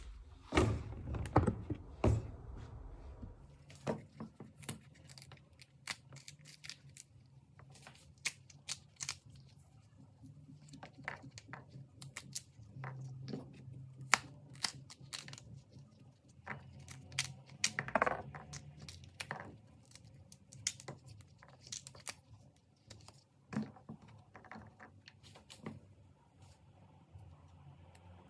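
Fresh broad bean (fava bean) pods being shelled by hand: pods split and torn open with short crisp snaps and clicks, beans dropping onto a wooden cutting board. A few louder knocks come in the first two seconds, and a faint low hum runs underneath.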